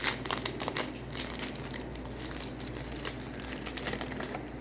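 Foil wrapper of a Pokémon trading-card booster pack crinkling as it is handled and torn open by hand, a dense run of crackles.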